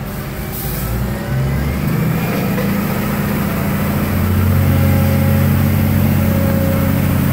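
Heavy diesel engines working hard under load as a wheel loader tows a mud-stuck truck on a taut cable, the engine note stepping up about a second in and again about four seconds in as the throttle opens.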